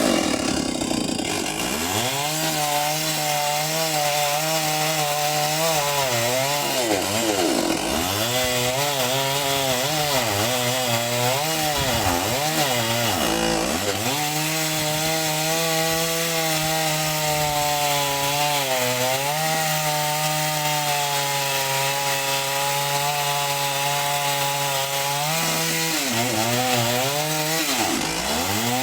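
Chainsaw running at high revs, its engine note dipping and climbing back again several times, with a long steady stretch at full speed in the middle.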